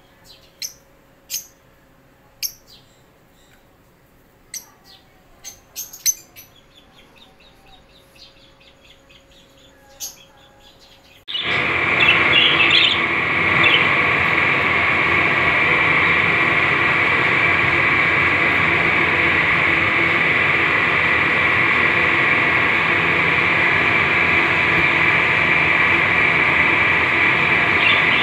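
Sparse, sharp chirps from caged parakeets over quiet for the first eleven seconds or so. Then a sudden switch to the loud, continuous, dense chatter of a flock of budgerigars in an aviary.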